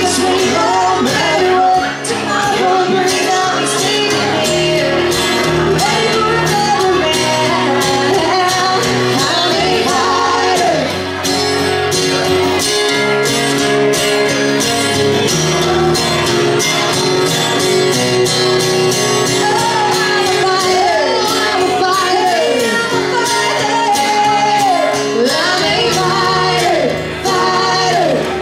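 Live band music with singing over a steady, dense beat; the sung lines slide up and down in pitch.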